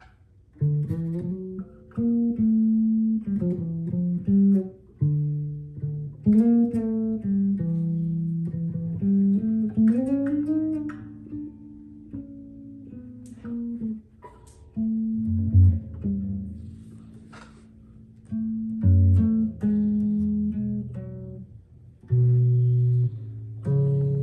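Sterling SUB4 StingRay electric bass played through an Ampeg BA110 combo amp, with its onboard bass and treble EQ both at the centre détente. It plays a run of plucked notes, some of them held, with a slide up in pitch about ten seconds in.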